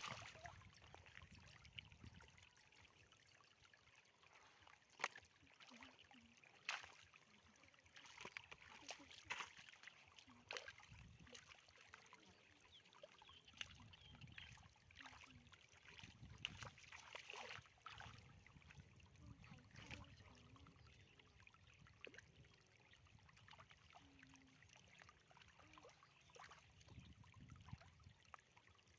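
Faint sloshing and trickling of shallow water, broken by scattered short splashes, two of them sharper about five and seven seconds in, as hands work through the water.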